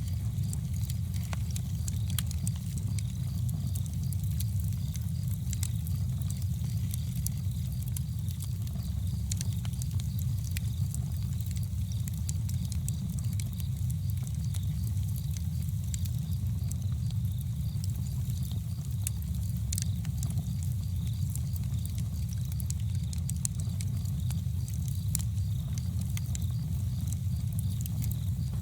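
Campfire burning: wood crackling in frequent sharp, irregular clicks and pops over a steady low rumble.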